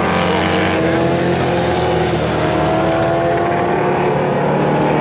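Motorcycle engines running steadily, their pitch gliding slowly upward over a few seconds.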